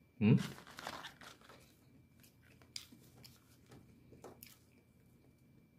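Food packaging crinkling and tearing, loudest in a short burst just after the start, followed by scattered light clicks and rustles.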